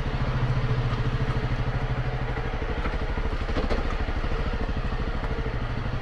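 Dual-sport motorcycle engine running steadily at low speed, its exhaust giving an even, rapid pulsing beat.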